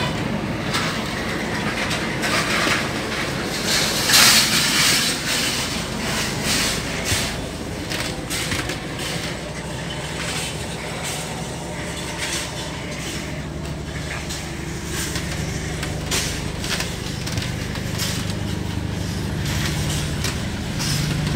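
Running noise of a moving passenger train heard inside a sleeper car: a steady low rumble and hum with irregular clicks and knocks, louder for a moment about four seconds in.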